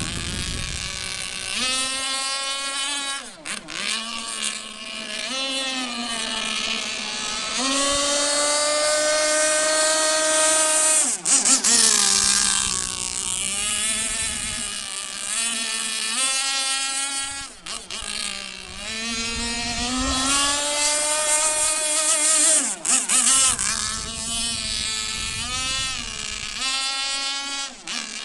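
Tuned Zenoah G290 two-stroke petrol engine of an RC offshore racing boat running hard, a high buzzing note whose pitch rises and falls several times as the throttle is worked and the boat turns.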